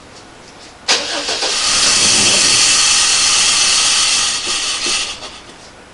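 Oldsmobile Bravada engine catching suddenly about a second in on gasoline poured into the throttle body, running with a loud rushing intake sound for about three seconds, then fading out as it dies: a fuel-delivery fault, suspected fuel pump, since it runs only on fuel poured in by hand.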